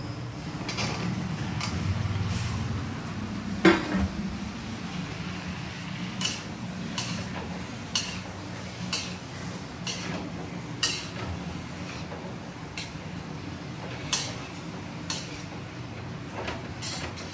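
A metal utensil clinking against cookware in short, light strikes roughly once a second, with one louder knock about four seconds in.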